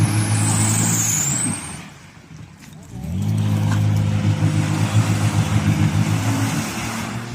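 Off-road 4x4 engine revving hard and holding high revs. The revs drop for about a second a couple of seconds in, then climb again and stay up.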